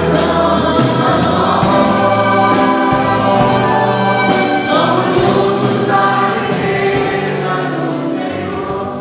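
Background music: a choir singing a gospel song with instrumental accompaniment, starting to fade out near the end.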